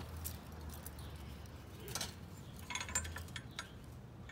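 A few light metallic clinks and taps, about two seconds in and again a little before the end, from the steel exhaust header pipe being handled while heat-wrap tape is wound onto it, over a steady low hum.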